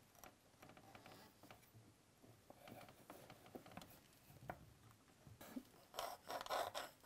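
Faint scratching and rubbing of a pencil marking a line on a ceramic wall tile along a spirit level, with a few light clicks; the scratching gets louder near the end.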